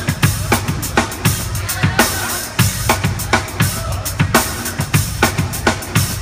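Live rock band playing: a drum kit keeps a steady, driving beat of kick and snare, about three hits a second, loudest in the mix, over electric bass, with fainter melodic lines above.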